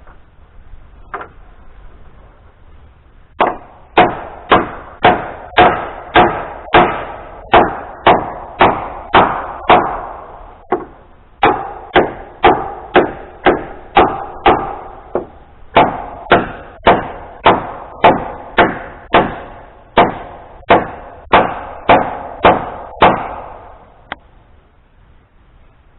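Hammer driving nails into wood: sharp blows at about two a second, in three runs with short pauses between.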